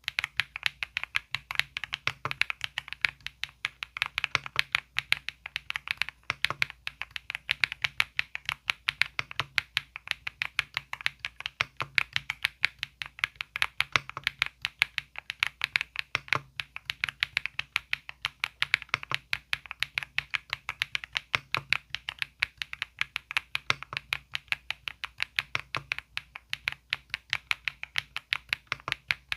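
Continuous fast typing on an EPOMAKER Galaxy68 aluminium-cased mechanical keyboard: a dense run of crisp keystroke clacks, several a second.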